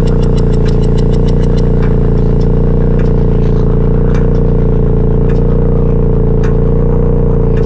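Electronic soundtrack drone: a loud, unchanging low hum of many layered steady tones. A fast clicking pulse over it stops about two seconds in, and single sharp ticks then fall about once a second.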